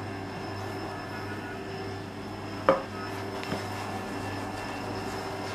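Wooden rolling pin working dough on a floured marble slab over a steady low hum, with one sharp knock against the slab about two and a half seconds in and a lighter one about a second later.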